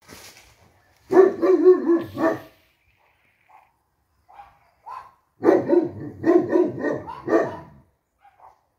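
Greek Shepherd livestock guardian dogs barking in two loud runs of rapid barks, about a second in and again from about five and a half seconds, with a few faint barks between.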